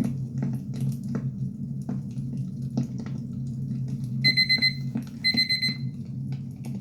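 Wood fire crackling over a steady low hum, and about four seconds in a digital timer alarm sounds in two short bursts of rapid high beeps, marking the end of the ten-minute session.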